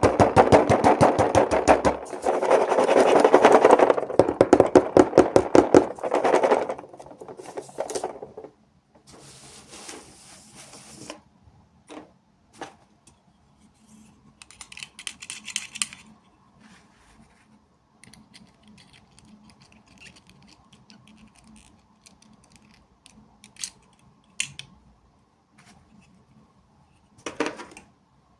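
Hands unboxing small toys: a fast rattling run of clicks from packaging being handled for the first several seconds, then sparse small clicks and light rustling, with one sharper click near the end.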